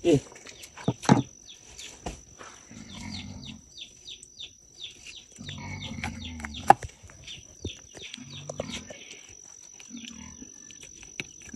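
A pig grunting in four short bouts, with birds chirping. A few sharp knocks of a knife blade striking a wooden board, the loudest near the start.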